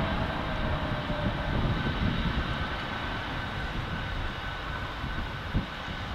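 Airbus A320neo airliner on landing approach, its geared turbofan engines giving a steady broad jet rush with a faint whine. Gusts of storm wind buffet the microphone with a low rumble, and there is one sharp thump near the end.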